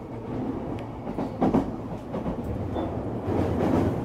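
Running noise of a JR E233-series electric train heard from inside: a steady rumble of wheels on rail, with a few louder knocks from the track along the way.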